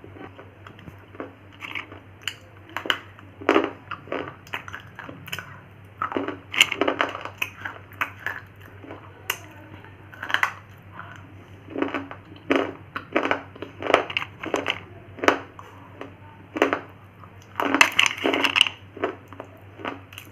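Slate pencils being bitten and crunched between the teeth: a run of sharp, irregular crunches, roughly one or two a second, with louder clusters of snaps.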